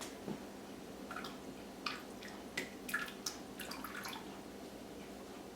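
Faint, irregular drip-like taps and clicks, about eight in a few seconds, over a low steady hiss, as hydrogen peroxide is measured out in a measuring cup.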